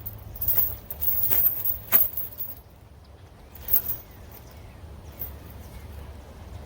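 Steel chain clinking in a few sharp metallic clicks as it is wrapped around a fence post, the loudest just before two seconds in, then one more clink near four seconds over quiet outdoor background.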